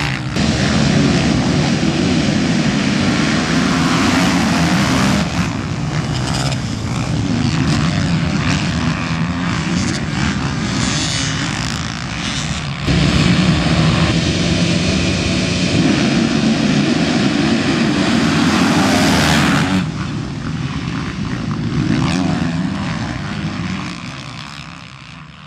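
Dirt bike engines running hard at high revs on the motocross track. There is an abrupt jump in the sound about halfway through, and it fades out at the end.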